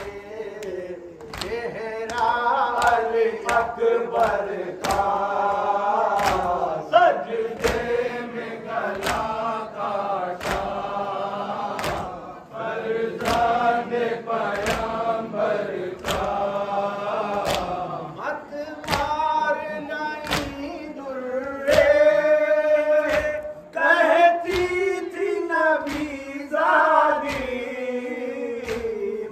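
Group of men chanting a nauha, a Muharram lament, together in a slow melodic line, over a steady beat of sharp slaps from hands striking chests in matam.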